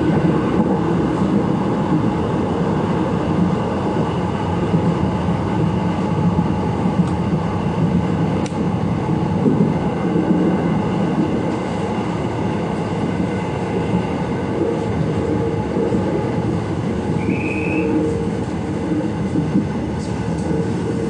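Electric commuter train running on the rails: a steady rumble of wheels and running gear, with a brief high squeal about seventeen seconds in.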